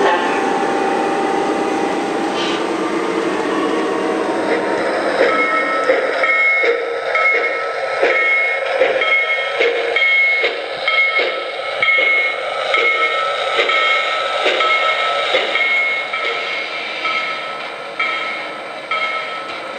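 O-scale model steam locomotive running, its sound system giving an even beat of about one and a half a second with short repeated tones, from about five seconds in; before that, a denser steady train sound.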